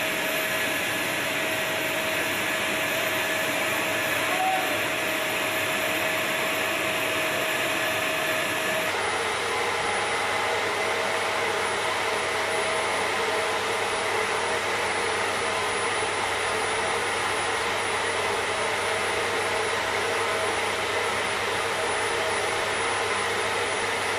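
Steady whine and rushing noise of running machinery around the aircraft, changing in tone abruptly about nine seconds in.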